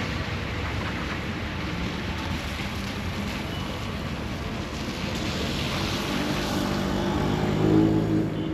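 Passenger train running through the station: a steady rumble and rush with no break. A low hum builds near the end and is loudest there.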